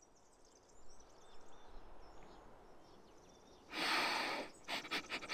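Faint birdsong ambience, then a little past halfway a loud breathy rush of air followed by a quick run of short sniffs.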